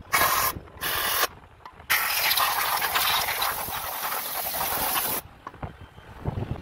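Aerosol spray can hissing in two short bursts, then one long spray of about three seconds, sprayed onto the engine.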